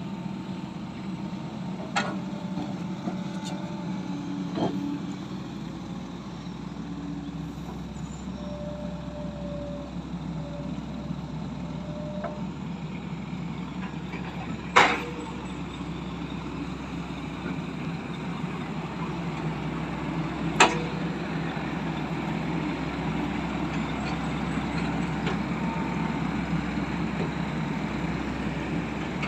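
Diesel engine of a crawler excavator running steadily as it loads logs, with a few sharp knocks of rubberwood logs landing on a truck bed, the loudest about halfway through and again about two-thirds of the way in.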